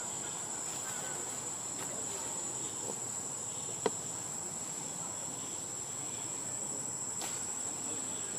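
Steady, high-pitched insect drone. A single sharp click comes a little under four seconds in.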